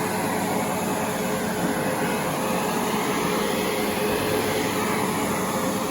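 Windsor Sensor S12 commercial upright vacuum cleaner running steadily, a constant whooshing motor noise with a faint hum.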